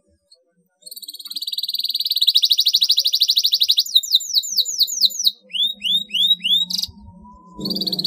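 Domestic canary in full song: a long, very fast high trill, then two runs of separate downward-sweeping whistled notes, with another rapid trill starting at the very end.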